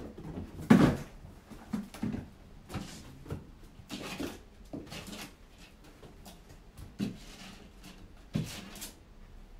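Kittens leaping at a wall and landing on a tiled floor: irregular thumps and knocks with brief scrabbling of paws, the loudest about a second in.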